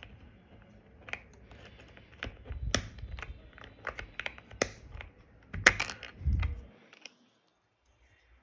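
Keys being pressed irregularly on a Monka 3087 Pro V2 mechanical keyboard with Sea Salt tactile switches: scattered clicks and clacks, a few louder strikes with a dull thud, stopping abruptly near the end.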